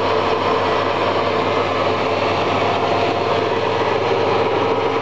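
Steady mechanical hum of running machinery.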